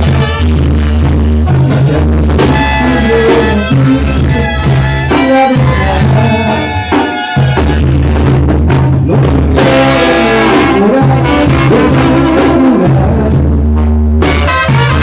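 Loud Latin music with brass horns and drums over a strong, steady bass.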